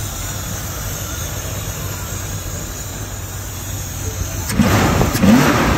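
The small-block V8 of a 1988 Chevy OBS truck idles steadily on its newly installed Edelbrock Pro-Flo 4 fuel injection, just after its first start with timing and idle speed set. It sounds pretty good. About four and a half seconds in, a louder rush of noise comes in with a brief rise in pitch.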